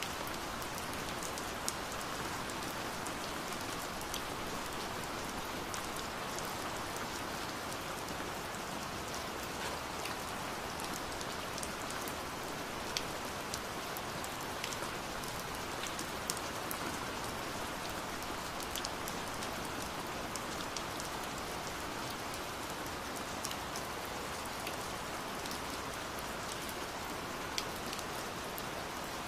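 Steady rain falling, with scattered sharper drops picked out over the even patter.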